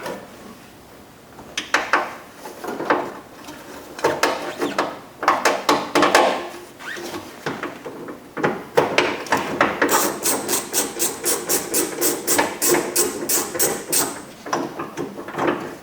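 Ratchet with a 10 mm socket and extension undoing the door handle's bolts: scattered knocks and clicks of the tools, then a quick even run of ratchet clicks, about four or five a second, for some four seconds.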